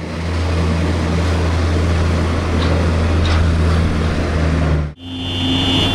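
Diesel engine of a container reach stacker running under load as it drives across a gravel yard, a loud steady low hum. About five seconds in it cuts off suddenly, and another machine follows with a steady high-pitched tone.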